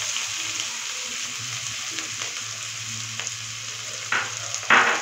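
Sliced onions sizzling steadily in hot oil in a kadai, just after going in. Two brief louder bursts come near the end, the second the loudest.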